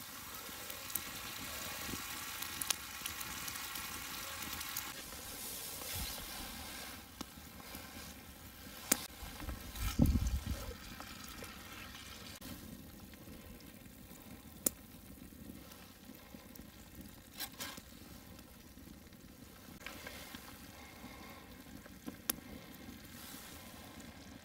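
Steak fajitas sizzling in a pan, a steady hiss with scattered sharp pops and crackles. The sizzle drops quieter about seven seconds in, and there is a dull knock about ten seconds in.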